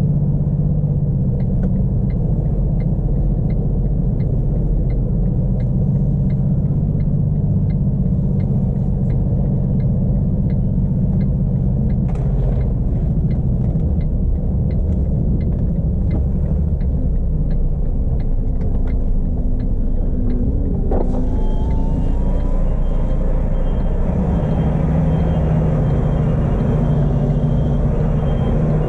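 The Iveco S-Way's 12.9-litre Cursor 13 straight-six diesel running steadily, heard from inside the cab, with light regular ticking about two a second through the first half. About two-thirds of the way through there is a sudden sound, and then a steady hiss and a repeating high beep start.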